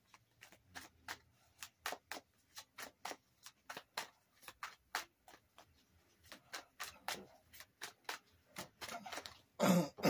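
A deck of tarot cards being shuffled by hand: a run of soft, irregular card clicks and snaps, several a second.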